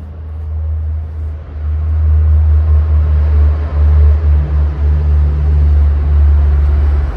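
Heavy low rumble of road traffic on the highway bridge overhead, swelling about a second and a half in and staying loud.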